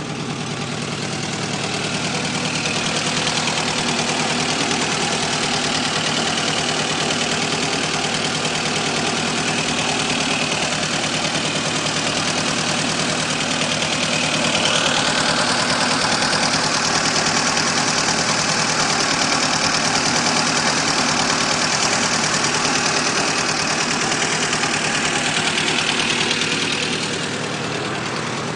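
VAZ-2109 (Lada Samara) four-cylinder petrol engine running with a knock and vibration whose cause the owner does not know. It gets louder about halfway through and settles back near the end.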